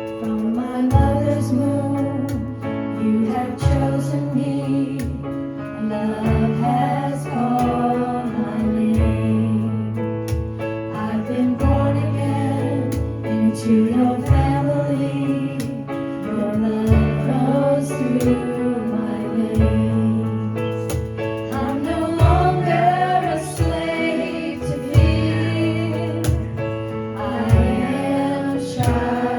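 Live worship band playing a contemporary worship song, with sung vocals over keyboard, bass and light drums.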